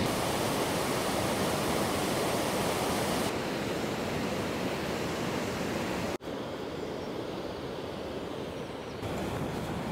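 Water pouring over a river weir, a steady rushing. After a brief break about six seconds in, it goes on fainter.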